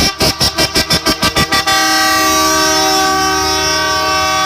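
Multi-tone vehicle air horn sounding a chord: about ten quick toots in a row, then one long held blast.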